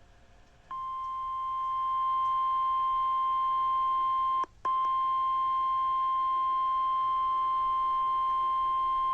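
NOAA Weather Radio warning alarm tone, a single steady high beep of about 1050 Hz. It starts under a second in and swells over the first second, then breaks briefly with a click about halfway before carrying on. It is the alarm that signals a warning is about to be broadcast.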